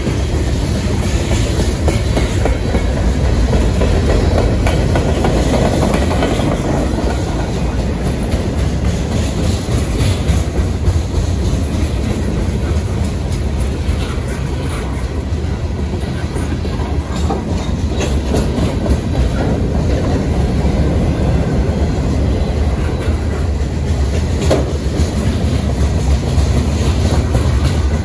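Freight train of boxcars and covered hopper cars rolling past: a steady heavy rumble with the wheels clacking over rail joints and occasional sharp metallic clicks.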